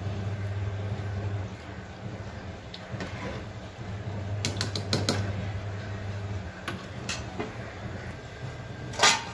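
Metal ladle stirring boiling sambar in an aluminium pot, clinking against the pot a few times about halfway through, over a low steady hum. A louder knock near the end.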